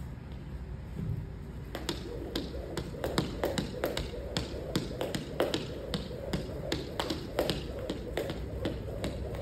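Jump rope skipping on a foam wrestling mat, its rope slapping the mat in quick, even taps of about three to four a second, with soft thuds of landing feet. The rhythm starts about two seconds in.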